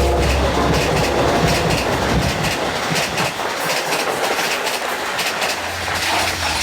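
DM30AC dual-mode locomotive and its train passing at speed, a heavy rush of steel wheels on rail with fast clickety-clack over the rail joints. A deep engine rumble is strong for the first couple of seconds, then drops away as the cars go by.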